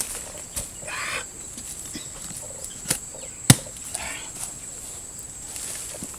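Two sharp knocks, the second louder, about halfway through, amid light rustling of rotten palm-trunk debris being handled. A bird calls twice in the background over a steady high insect whine.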